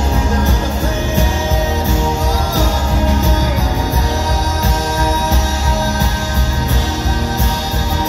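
Live rock band playing: a lead vocal over strummed acoustic guitar, bass guitar and drums.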